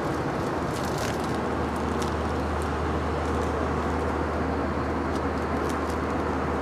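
Steady cabin noise of an Airbus A321 in flight: a constant rush of air with a low drone underneath, and a few faint light clicks.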